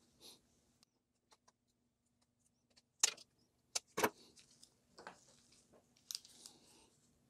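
Small plastic and metal parts handled on a wooden workbench: a few sharp clicks and knocks as pieces are set down and picked up, the loudest about four seconds in, with gloved hands rustling between them.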